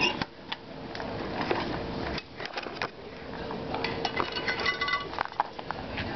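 Light metallic clinks and rattles of metal being handled, with a short ringing clank about four to five seconds in, over a faint steady hum.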